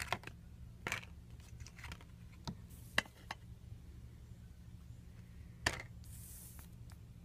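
Trading cards being handled and laid down on a wooden surface: a handful of sharp taps and clicks at irregular intervals, the loudest about three seconds in and again near the end, over a steady low hum.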